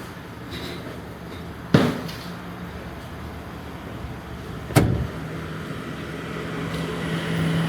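Two sharp thuds about three seconds apart, the first the loudest, then a steady low motor hum that starts just after the second.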